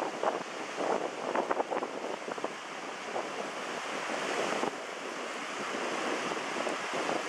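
Sea waves washing, with wind rushing over the microphone: gusty crackling in the first couple of seconds, then a steadier rush.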